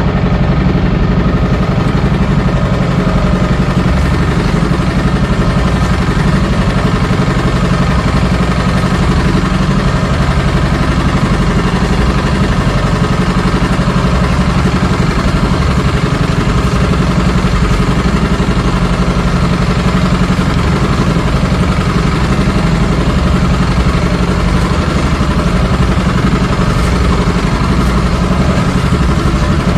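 Outrigger fishing boat's engine running steadily at an even, unchanging speed.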